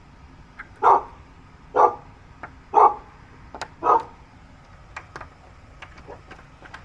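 A dog barking four times, about once a second, followed by a few faint clicks.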